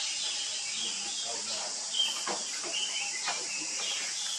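Outdoor woodland ambience: birds chirping in short high calls over a steady high hiss, with a few brief sharp rustles or clicks, the loudest about two seconds in.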